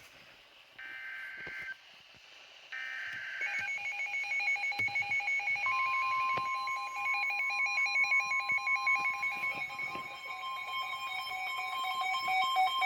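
Emergency Alert System data header from NOAA Weather Radio: two short bursts of screeching data tones, then a receiver's alert beeping rapidly in alternating pitches. About five seconds in, the steady 1050 Hz NOAA warning alarm tone joins and carries on under the beeping, marking the start of a new warning.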